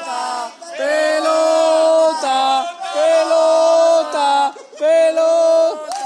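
Several voices chanting together loudly in long held notes, in four phrases, celebrating a goal.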